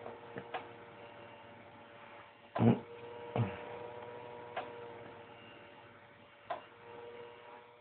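Steady electrical hum from a home-built BGA rework machine's heaters and fan running at full power, with several fixed tones. A few short clicks are spread through it, with a louder thump about two and a half seconds in, and the hum drops away at the very end.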